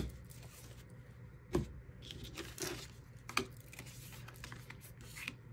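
Tarot cards being handled and laid down on a table: a few short rustles and light taps of card stock, the clearest about one and a half seconds in.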